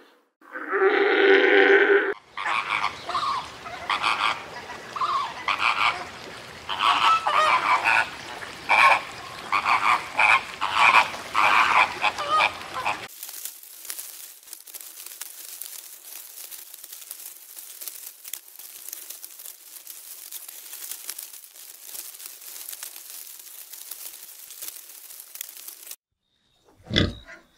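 A sequence of animal sounds: a fur seal calls for about two seconds, then a run of short, repeated animal calls lasts about ten seconds, then a steady high hiss runs for about thirteen seconds. Pigs begin grunting just before the end.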